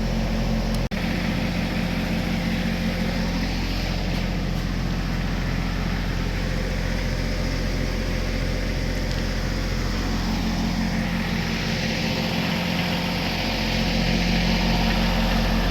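A steady, continuous low mechanical drone from a running engine or motor, unchanging throughout, with a brief dropout about a second in.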